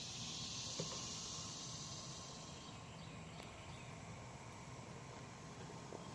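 Outdoor ambience of a steady, high-pitched insect drone that fades about two and a half seconds in, with a light tap just under a second in.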